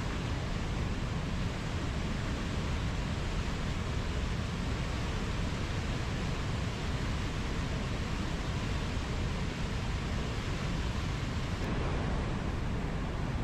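Water pouring down a waterfall, a steady, even rush with no separate events.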